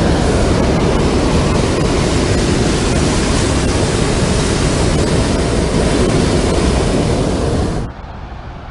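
Hot air balloon propane burner firing in one long, steady blast that cuts off near the end, leaving a quieter low rumble.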